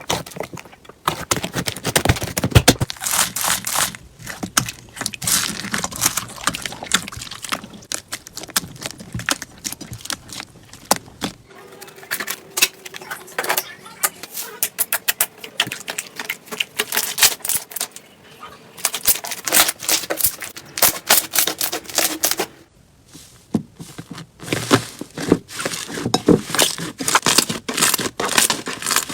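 Slime being squeezed and poked by hand, giving a dense run of crackling, popping clicks, with the texture of the clicking changing twice.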